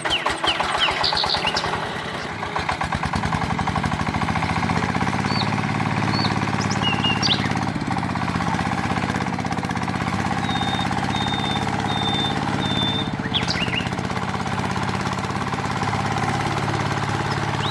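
Small engine running steadily with a rapid, even beat; its sound changes and settles into a steady run about two seconds in. Birds chirp over it.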